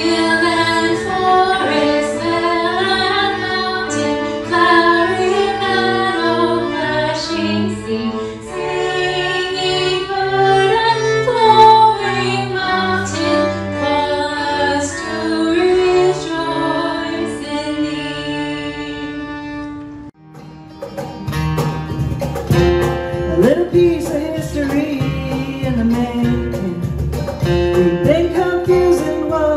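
Two fiddles and a cello play a tune together in long bowed notes. About twenty seconds in it cuts to acoustic guitars strumming, with a woman singing over a steady cajon beat.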